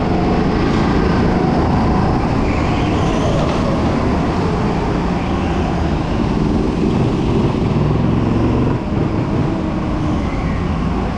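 Go-kart engine running under racing load, heard from onboard the kart, its pitch rising and falling as the driver accelerates and lifts through the corners.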